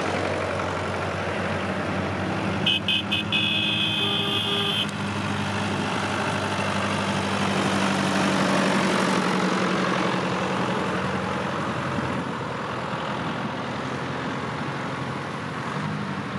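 Tractor engines running steadily as a line of old tractors drives past, loudest about eight seconds in as a John Deere passes close. A horn sounds about three seconds in: three short toots, then a longer blast.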